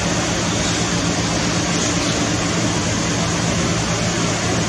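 Steady background noise with a constant low machine hum, like a ventilation fan or air-conditioning unit running.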